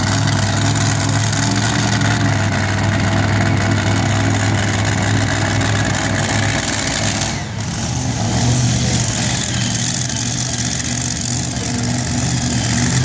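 Pulling tractor engine idling with a loud, steady low drone. About seven and a half seconds in it dips briefly, then settles back to the same level.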